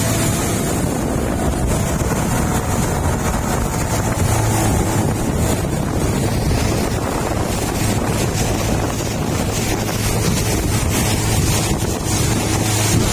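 A small engine running steadily under way, with wind buffeting the microphone.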